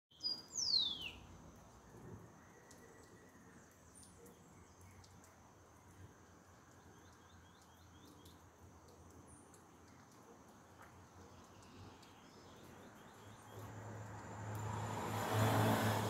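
A bird gives one loud falling whistle about half a second in, followed by faint scattered chirps over quiet outdoor ambience. Near the end a passing vehicle's noise swells up with a low hum and peaks just before the end.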